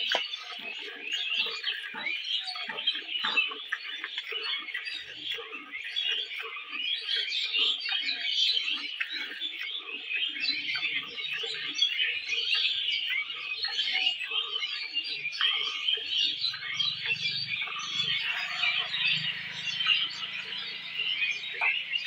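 Many small birds chirping without a break, over short rhythmic swishes of milk squirting into a steel bucket as a cow is milked by hand, about two squirts a second. A faint low hum joins in the last few seconds.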